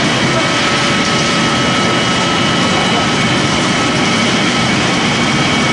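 Pellet making machine for corn stalk and sawdust running steadily: a loud, even mechanical din with a few constant high whining tones over it.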